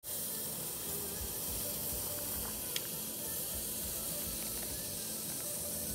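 Wind blowing over the microphone: a steady hiss with uneven low rumbling gusts, and one sharp click near the middle.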